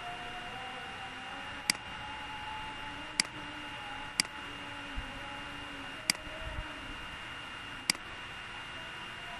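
Computer mouse clicking five times at uneven intervals, sharp short clicks over a steady microphone hiss with a faint high whine.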